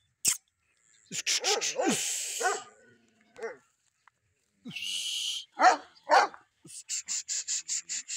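Dogs barking and yelping in short bursts, loudest about two-thirds of the way through, with a quick run of yips near the end. Two short hissing rushes are heard between the cries.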